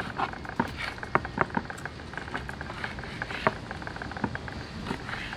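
Knife slicing a raw white fish fillet into strips on a wooden cutting board: irregular soft taps and clicks as the blade goes through the flesh and meets the board, a few of them sharper.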